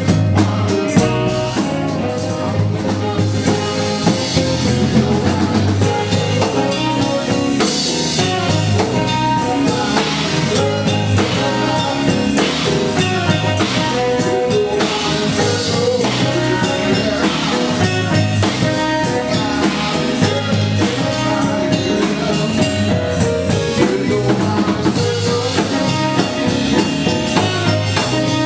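Live band music: a drum kit keeps a steady beat with rimshots under the rest of the band.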